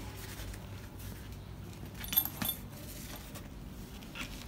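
Shoulder-strap hardware on a nylon tool backpack clinking as the strap's clip is handled against the bag's side tab: two sharp clicks close together about two seconds in, over quiet rustling of the strap and fabric.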